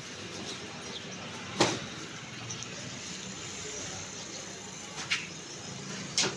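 A few sharp knocks over a steady low rumble: the loudest about a second and a half in, two smaller ones near the end.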